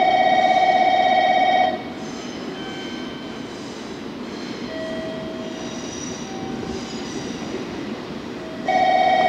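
Station platform electronic bell ringing, a rapid steady trill, which stops about two seconds in. A JR Kyushu 787 series train then rolls in as a quieter rumble with faint whines, and the bell trill starts again near the end.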